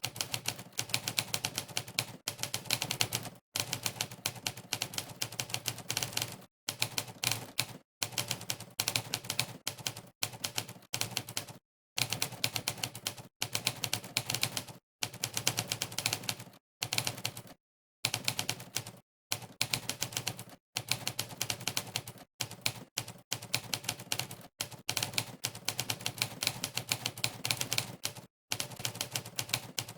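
Monkeytype's typewriter keypress sound effect, one clack per keystroke, clattering in rapid runs of typing with short silent breaks between them.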